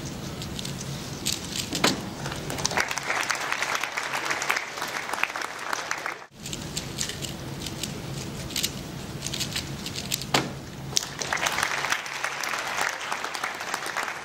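Audience applauding and cheering, swelling twice, with a sudden break in the sound about six seconds in.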